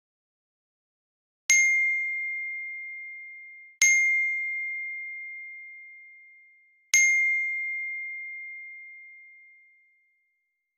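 Phone message notification chime sounding three times, two to three seconds apart: each a bright single-pitched ding that rings and fades slowly.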